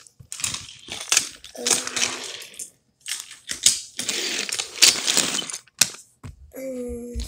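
Small hard toy pieces clattering and clinking as they are rummaged through and handled, in repeated bursts of rattling. A brief voice-like hum comes near the end.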